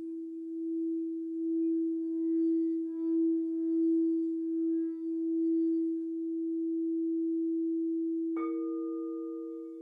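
Crystal singing bowls: one bowl is sung by rubbing a mallet around its rim, giving a steady low tone that wavers in loudness. About eight seconds in a second bowl is struck, adding a higher ringing tone over the first.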